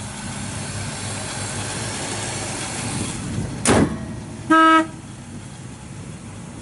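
The hood of a 1955 Chevrolet Bel Air is shut with a single thud. Shortly after, the car's horn gives one short toot.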